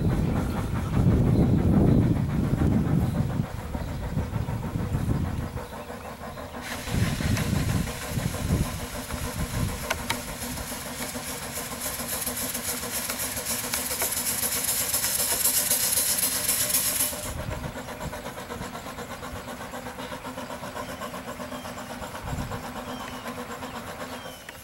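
5/8-scale Wood Brothers 22/70 steam traction engine working, with an uneven low rumble in the first few seconds. A steady hiss of escaping steam starts sharply about seven seconds in and cuts off about ten seconds later.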